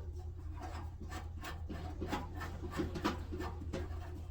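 Hands and tools working inside an opened dryer cabinet: irregular scraping and rubbing with light taps, over a steady low hum.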